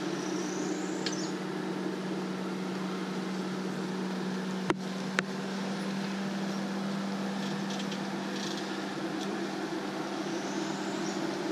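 Jeep Wrangler engine running steadily at low revs as the Jeep creeps along a rutted dirt trail. Two sharp clicks come about five seconds in.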